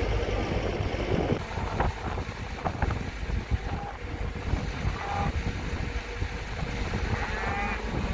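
Wind buffeting the microphone with a steady low rumble. Two brief pitched calls come through, one about five seconds in and one near the end.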